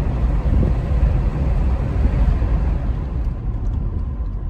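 Steady low rumble of a car in motion.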